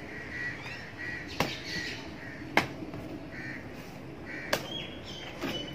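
A bird calling over and over outdoors, short calls about twice a second. Three sharp clicks about one and a half, two and a half and four and a half seconds in, the middle one the loudest, as a taped cardboard box is handled.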